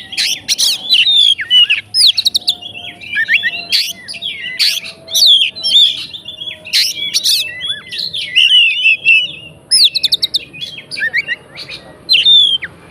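Oriental magpie-robin (kacer) singing a fast, varied song of chirps and whistles in quick, densely packed phrases, full of notes mimicking other birds. The song breaks off near the end.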